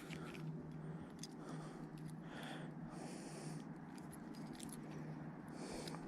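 Faint rustling and small clicks of fishing tackle being handled, over a low steady hum.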